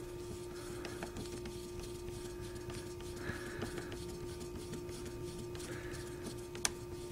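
Faint ticking and scraping of a screwdriver turning screws into an airsoft AEG gearbox shell, with one sharp click near the end, over a steady electrical hum.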